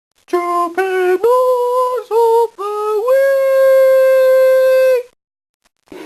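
A solo voice singing a short wordless tune a cappella: five quick notes, then a long held higher note that stops abruptly.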